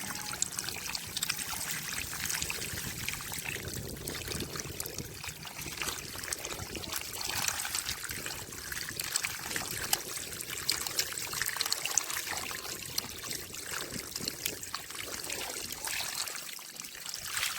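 Water trickling steadily, dotted with many small splashes and ticks.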